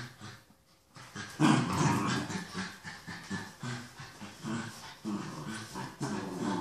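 Small terriers growling in play while tugging a toy, in a quick run of short growls that starts about a second in.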